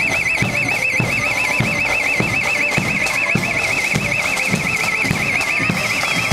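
A steady high warbling tone, like an electronic alarm, wavering up and down about six times a second without a break, over a regular low thud a little under twice a second.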